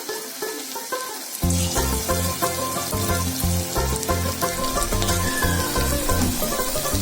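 Pakoras frying in hot oil, a steady sizzle, under background music with a plucked melody; a heavy bass beat comes in about a second and a half in.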